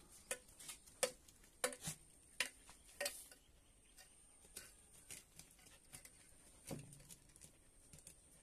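A dog scrabbling and digging in loose dirt with its paws and sniffing at a hole: a run of irregular sharp scratches and clicks, closer together in the first three seconds and sparser after.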